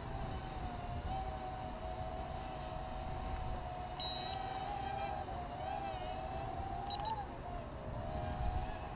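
Dromida Kodo micro quadcopter in flight, its motors and propellers giving a steady high hum that wavers up and down in pitch from about five seconds in as the throttle shifts. Wind rumbles on the microphone underneath.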